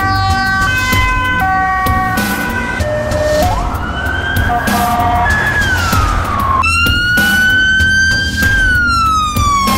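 Emergency vehicle sirens heard one after another. First a siren steps back and forth between tones. Then a wail rises and falls, and about two-thirds of the way through a louder wail cuts in abruptly, climbs slowly and then glides down.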